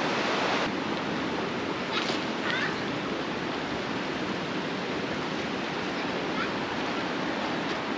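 Yarra River flowing, a steady even rush of water, with a couple of faint chirps about two seconds in.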